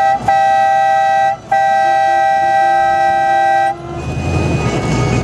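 Vehicle horn sounding at steady pitch: a short toot, then a blast of about a second, then a longer blast of about two seconds, over engine and road noise.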